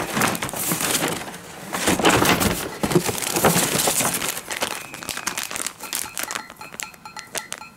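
Paper bag and clear plastic packaging rustling and crinkling as they are handled and opened. The crinkling is dense for the first five seconds or so, then thins to scattered crackles.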